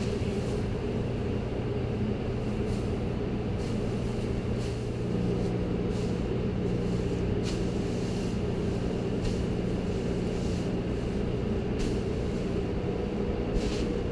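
Tractor engine running steadily at a constant speed, with a few faint clicks over it.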